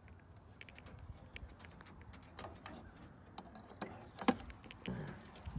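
Scattered light clicks and taps over a low rumble from a person moving and handling the camera among wooden nest boxes, with one sharp click a little after four seconds in.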